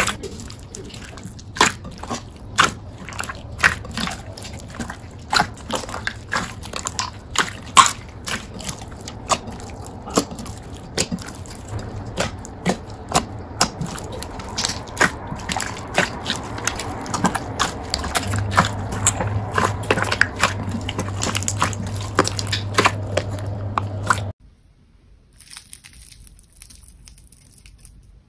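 Jelly slime being squished and poked by hand: wet squelching with a sharp sticky pop or click about twice a second. A low hum joins under it for the last several seconds before the sound stops suddenly.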